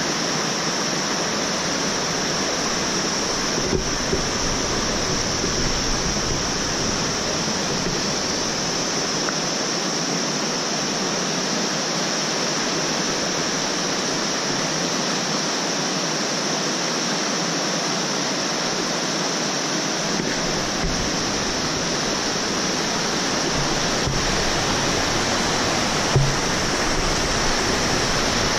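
Fast, shallow mountain river rushing over rocks and boulders, a steady, unbroken roar of water. A single soft knock sounds near the end.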